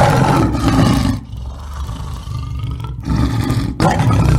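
Lion roaring: a series of deep, rough roars, loud at first, easing off about a second in, then rising again twice near the end.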